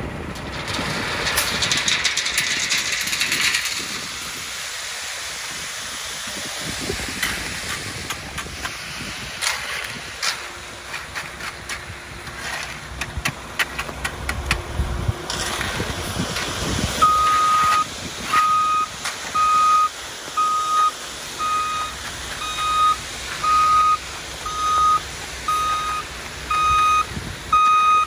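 Wet concrete sliding down a ready-mix truck's steel chute into the form, a gravelly rush with scattered clicks of stone, over the steady hum of the truck's engine. About seventeen seconds in, the truck's reversing alarm starts beeping, about one beep a second.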